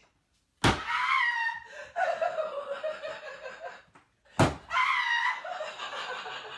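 A sledgehammer strikes a wooden kitchen wall cabinet twice, once under a second in and again about four and a half seconds in, each sharp bang followed by a woman shrieking and laughing.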